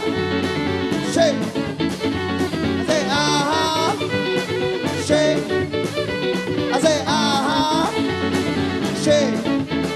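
A live band playing an upbeat, blues-tinged country song with drums, bass and guitar. A wavering lead line comes in twice, about three seconds in and again about seven seconds in.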